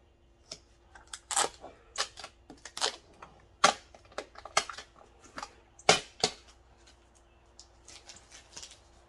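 Paper tags and plastic wrapping being peeled and picked off a hard plastic Doona car seat base: a run of sharp, irregular crackles and clicks, fainter near the end.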